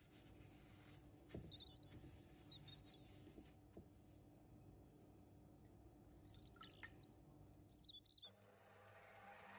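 Faint squeaks, drips and light clicks of handling at a stainless-steel stand-mixer bowl. About eight seconds in, a steady whirring noise starts as the stand mixer begins beating the egg whites.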